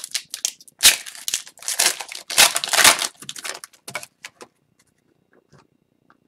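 Wrapper of an Upper Deck Series 2 hockey card pack being torn open and crumpled, a run of crackly rustling that dies away about four seconds in.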